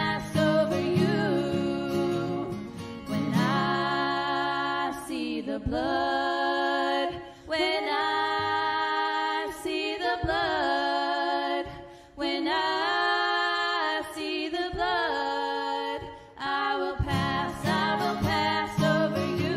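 Music: a singer holding long notes with vibrato and sliding between pitches, over guitar accompaniment.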